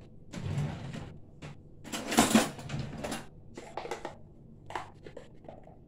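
A string of short knocks, clinks and scrapes from spice jars and their lids being handled and set down on a kitchen counter, the loudest clatter about two seconds in.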